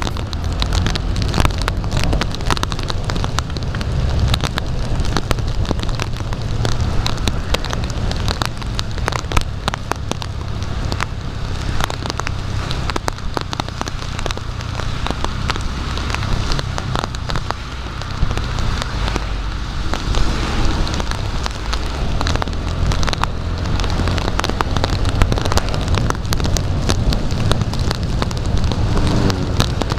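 Heavy rain hitting the plastic wrapped around an action camera: a dense, irregular patter of drop hits over a steady low rumble.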